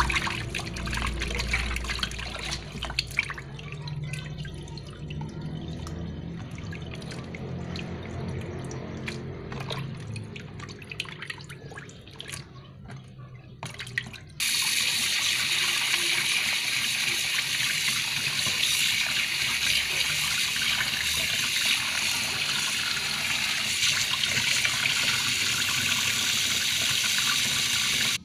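Raw chicken pieces swished by hand in a tub of water in a stainless steel sink: uneven sloshing and splashing with small knocks. About halfway through, a tap comes on suddenly and runs steadily onto the chicken, louder than the sloshing, until the end.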